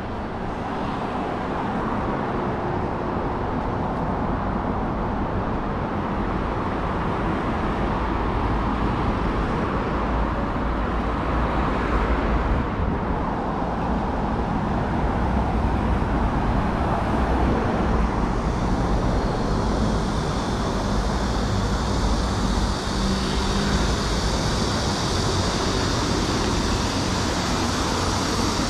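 Steady city road traffic: vehicles running along a street, a continuous rumble with tyre and engine noise. About two-thirds of the way through the hiss gets brighter, as of a vehicle passing close.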